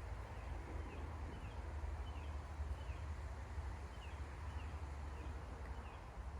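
Faint bird chirps, short falling notes repeating about one or two times a second, over a steady low rumble.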